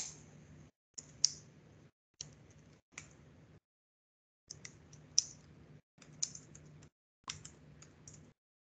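Typing on a computer keyboard: keystroke clicks in about seven short bursts, the sound cutting off abruptly to silence between bursts.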